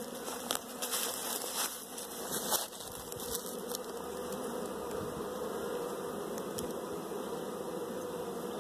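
Honey bees buzzing in a steady drone, with a few light knocks in the first three seconds.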